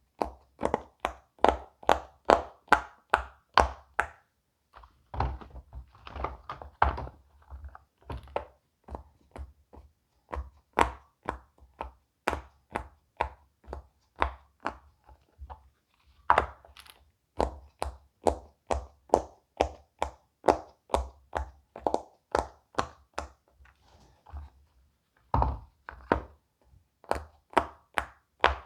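Silicone pop-it fidget toy bubbles being pressed one after another, each giving a short popping click, about three a second, with brief pauses twice.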